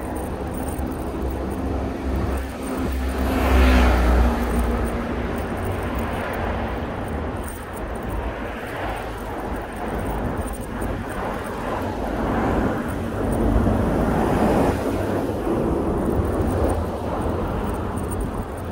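City road traffic heard from a moving bicycle, over a constant low rumble: a motor vehicle's engine passes close about four seconds in, the loudest moment, and traffic swells again around fourteen seconds.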